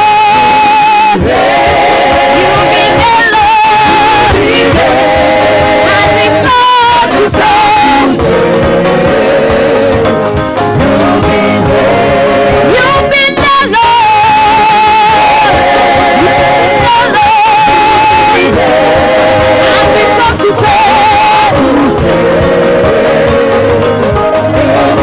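Gospel worship song sung by voices in chorus with a lead singer, over instrumental accompaniment, the notes held and wavering.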